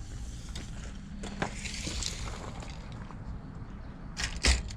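A few scattered knocks and handling clatter over a low background hum, with one loud sharp knock near the end.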